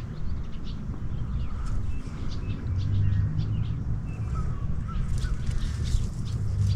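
Birds calling with short, repeated chirps and brief notes over a steady low rumble of wind on the microphone.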